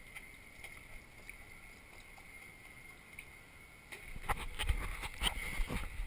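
Faint bathwater lapping with a few light ticks, then from about four seconds in louder splashing, sloshing and irregular knocks as the GoPro is picked up out of the bath.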